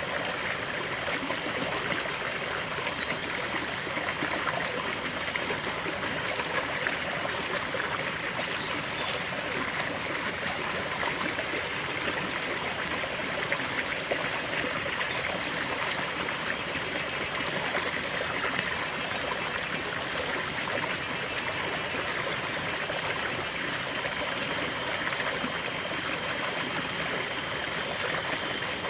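River water flowing and trickling over stones: a steady, even babble.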